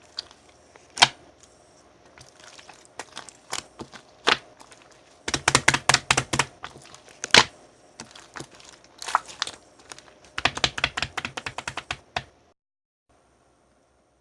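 Slime mixed with crunchy pearl beads being pressed and squished by hand, giving rapid bursts of sharp crackling clicks in irregular clusters. The clicking stops abruptly about twelve seconds in.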